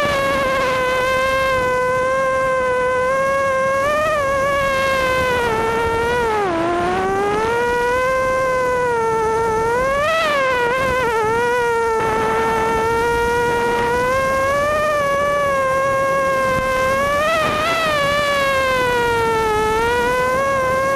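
FPV racing quadcopter's four Cobra 2204 2300kv brushless motors spinning 5-inch props, heard from the onboard camera: a loud, high buzzing whine that rises and falls in pitch with the throttle, dipping about six seconds in and surging around ten and eighteen seconds in.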